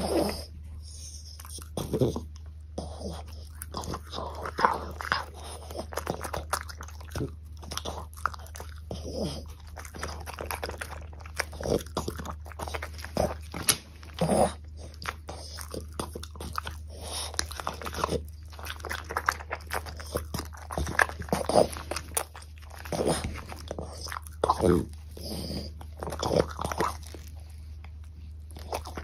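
French bulldog biting and chewing meat-stuffed okra: crisp crunches and wet chewing in irregular bursts, over a faint steady low hum.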